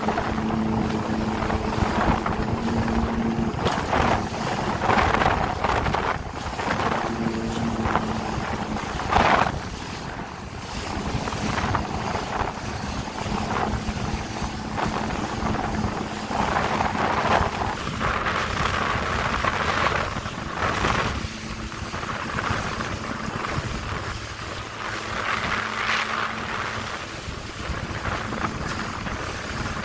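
Jet ski engine running steadily under way, with wind buffeting the microphone and water rushing past the hull in surges every few seconds.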